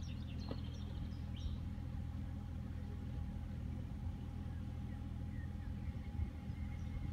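Steady low rumble with small birds chirping faintly, a few chirps near the start and a few more later on.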